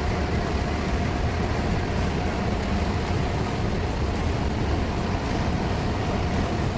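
A large ventilation fan running steadily: a loud, even drone with a deep rumble and a thin steady whine over it.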